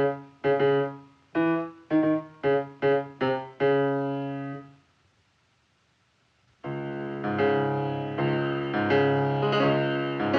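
Piano playing a run of loud struck chords, each one dying away, then pausing for about two seconds before a fast, continuous stretch of many-note piano music starts.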